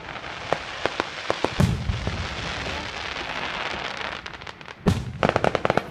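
Fireworks going off: scattered sharp pops, a deep boom about a second and a half in, and another boom near the end followed by a dense run of rapid crackling, over a steady hiss.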